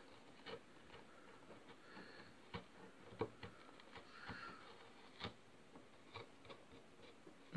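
Faint, scattered light clicks and taps of hand tools working on a guitar neck.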